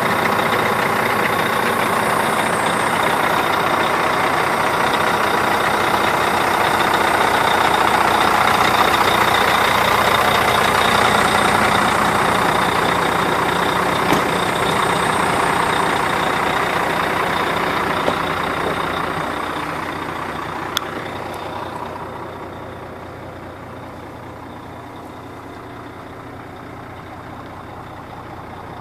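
Volvo FM12 truck's 12-litre straight-six diesel running steadily at idle. About 20 seconds in it becomes quieter and duller, as heard from inside the cab. A few short sharp clicks come through along the way.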